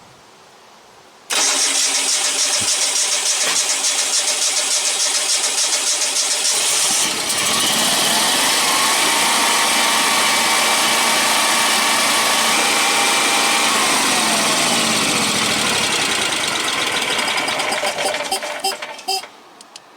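Generac Guardian standby generator cranking on its starter with a fast, even pulsing. After about six seconds the sound turns fuller, with a pitch that rises, holds for several seconds, then falls as it winds down and stops. The start fails with an overcrank fault, which the owner takes for the reason the battery was run dead.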